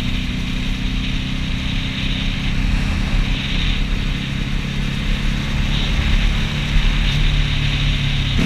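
Motorcycle engine running steadily at cruising speed, with wind noise over it.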